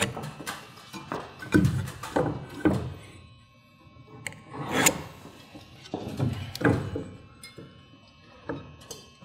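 Irregular knocks and taps of speed squares being set against wooden rafter tails while plumb lines are marked across them.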